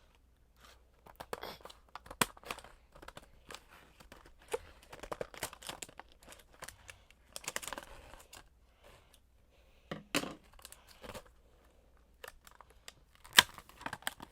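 Plastic packaging being torn open and crinkled, with irregular sharp crackles and rustles.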